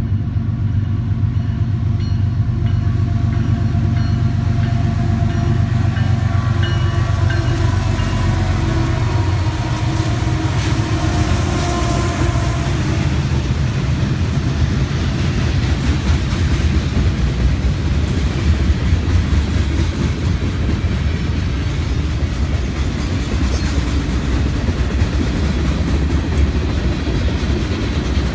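Union Pacific diesel freight locomotives passing under power with a steady engine drone. After about ten seconds this gives way to the continuous rumble and clatter of loaded centerbeam lumber cars rolling by on the rails.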